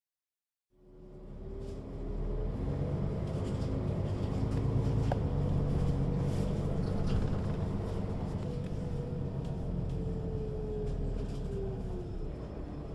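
Mercedes-Benz O 530 G Citaro G articulated bus, its engine and ZF gearbox running with a steady deep drone, fading in about a second in. A gear whine climbs slightly and then falls away near the end.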